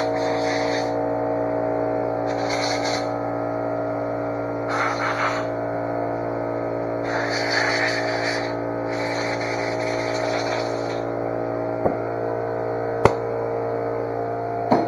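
An electric air compressor runs with a steady hum, while an air blow gun gives several short blasts of hissing air to blow the dust out of a carburetor body. Two sharp knocks come near the end.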